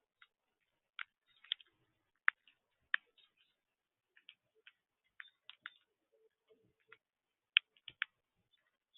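A series of short, sharp ticks at irregular intervals, a dozen or so, some coming in quick pairs, with the loudest about halfway through and near the end.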